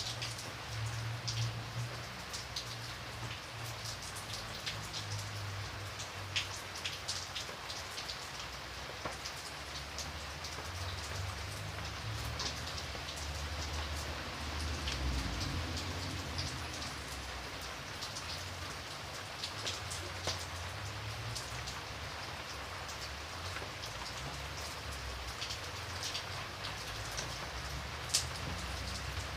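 Steady rain falling, a continuous hiss with many single drops ticking sharply on a surface, over a low rumble.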